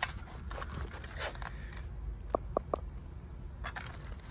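A switched-off circular saw being handled in leather gloves: rubbing, scraping and rattling of its metal base plate and guard, with three short clicks in quick succession about two and a half seconds in.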